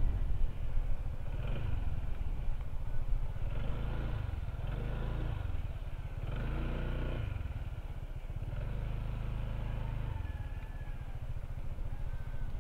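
Honda ADV160 scooter's single-cylinder engine running while ridden slowly, its pitch swelling up and back down twice about midway as the throttle is opened and eased.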